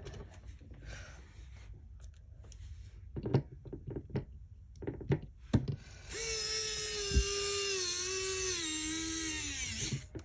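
A few handling clicks and knocks, then about six seconds in a Wahl Magic Clip cordless hair clipper, fitted with a new 7200 RPM motor, is switched on and runs with a steady high hum for about four seconds, sagging slightly in pitch before it is switched off and winds down.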